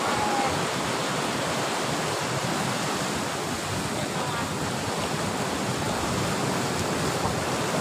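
Steady rush of sea surf breaking on the shore, with wind on the microphone.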